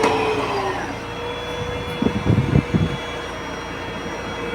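Cough assist machine's blower running with a steady whine that dips briefly in pitch about half a second in, then holds steady. A few low thumps come around two seconds in.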